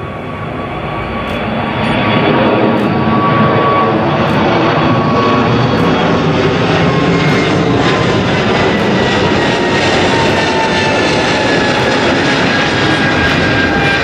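Airliner's engines at takeoff power: a loud roar that swells over the first two seconds and then holds steady, with a thin whine that slowly falls in pitch as the plane passes.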